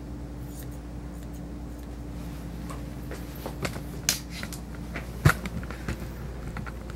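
Dog's claws and feet tapping on a grooming table as it shifts about: scattered light clicks, with one sharper knock about five seconds in, over a steady low hum.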